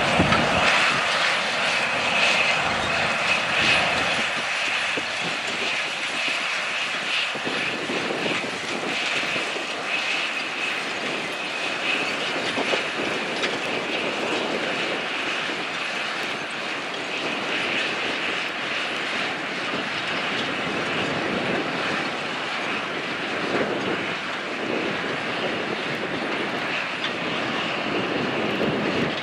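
Large articulated four-wheel-drive tractor's diesel engine running steadily under load, a continuous drone with a faint high whine. It is heavier and closer in the first few seconds, then heard from farther off for the rest.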